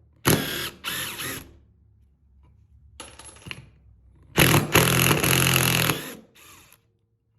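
Cordless impact driver running in short bursts, driving screws: two brief runs, another about three seconds in, then a longer, louder run of nearly two seconds and a final short blip.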